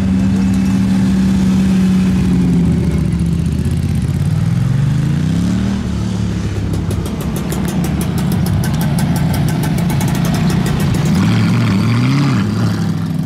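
Tuned Audi R8's 4.2-litre V8, loud, pulling away at low speed: the engine note holds steady, climbs in revs partway through, and gives a short rev rise and fall near the end.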